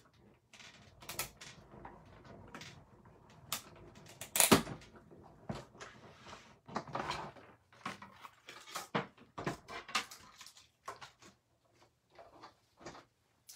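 A hand-cranked die-cutting machine being cranked to roll acrylic cutting plates and a die through it, with an uneven rumble and a scatter of clicks and knocks; the sharpest knock comes about four and a half seconds in. The plastic plates then clack as they are handled.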